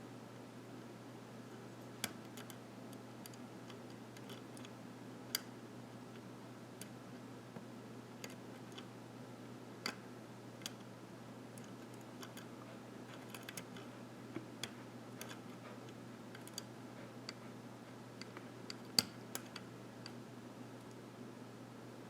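Scattered, irregular small metallic clicks and ticks of a lock pick and tension wrench working the pins of a pin-tumbler lock cylinder during single-pin picking, with a few sharper clicks standing out, the loudest near the end. A steady low hum sits underneath.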